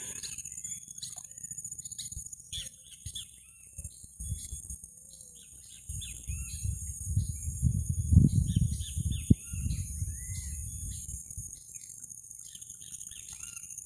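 Wild birds chirping repeatedly over a steady high-pitched drone of insects. A low rumble on the microphone rises from about the middle and fades a few seconds later.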